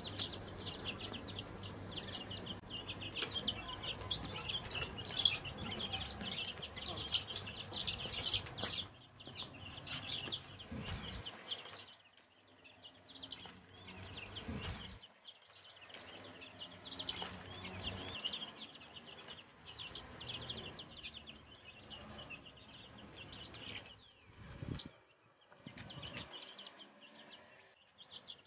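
A brood of young chicks peeping continuously, many short high cheeps overlapping, louder at first and quieter from about twelve seconds in.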